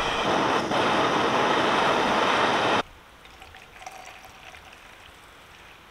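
Gas-canister camping stove burner hissing steadily under a pot, stopping abruptly about three seconds in. After it, faint liquid pouring into a metal camping mug.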